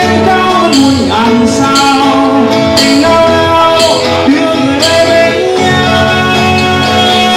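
Acoustic band playing a song, with a singer's voice over guitar and light percussion.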